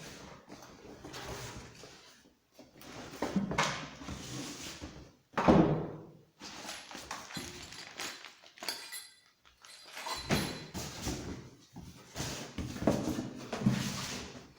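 Packaging and parts being handled: rustling and scraping with several dull thunks, the loudest about five and a half seconds in.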